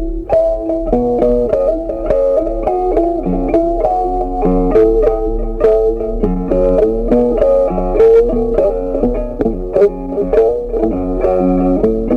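Background instrumental music of quickly plucked, guitar-like notes in a steady flowing pattern.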